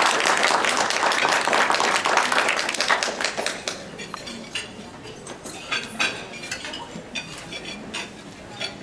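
Guests applauding: dense clapping that dies away after about three and a half seconds, leaving scattered clinks of dishes and cutlery.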